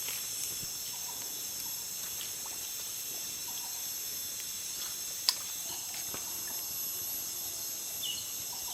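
Jungle insects, crickets and the like, keeping up a steady high-pitched chorus, with one sharp click about five seconds in.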